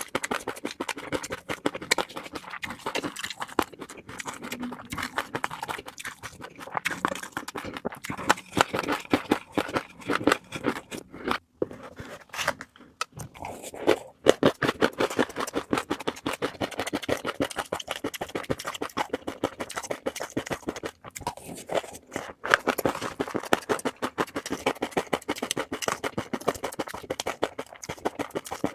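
Fish roe being worked, a dense run of small rapid clicks and crackles with a short lull a little before the middle.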